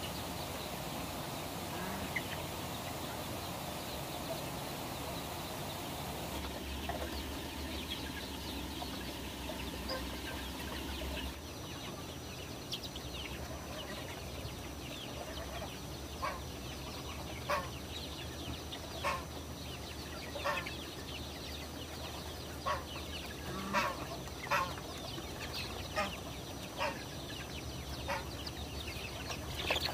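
A flock of young chickens clucking and peeping. About a third of the way in the sound changes, and short single calls then come roughly once a second.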